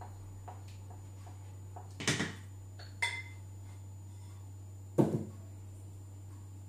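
A spoon scraping and knocking against the rim of a kitchen robot's stainless steel mixing bowl, with a ringing clink of glass, then a glass bowl set down on the table with a knock. The three loudest knocks come about two, three and five seconds in.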